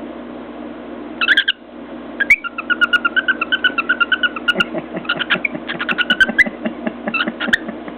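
Cockatiel chattering: a short call about a second in, then a fast run of quick, chirpy notes. In the second half the notes are mixed with sharp clicks from the bird's beak tapping against a mirror.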